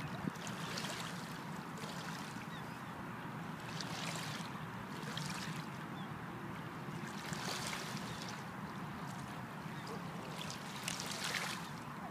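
Small lake waves lapping on a pebble shoreline, a soft splash every second or so over a steady wash of water.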